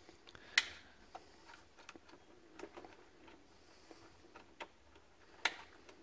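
Small clicks and ticks of fingers working a hose and its plastic retaining clip out of a fitting inside a DeLonghi Magnifica espresso machine, with two sharper clicks, one about half a second in and one near the end.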